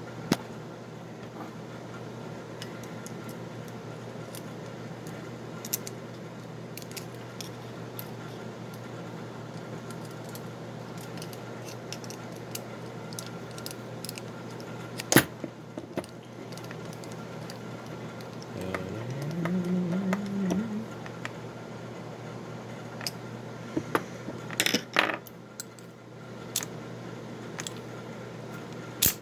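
Small metal clicks and jingles from handling a Federal padlock and a Master Lock 410 core and their keys, over a steady low hum. There is a sharp click about halfway through, a short rising tone about two-thirds in, and a cluster of clicks near the end.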